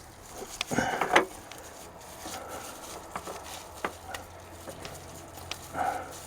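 Clicks, knocks and clatter of a fuel filter being handled and fitted by hand, with a louder burst of clatter about a second in and another near the end.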